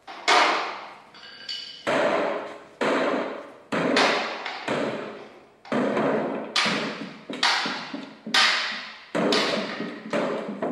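A series of sharp struck sounds, about one a second, each ringing out and fading before the next, played through an old Ampex loudspeaker.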